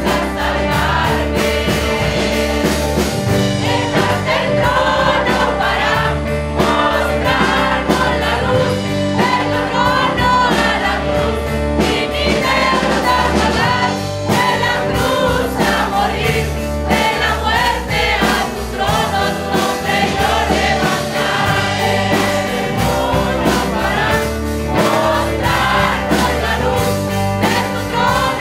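Mixed choir of women and men singing a Spanish-language worship song in unison, with a lead singer at the microphone, over steady low accompanying notes.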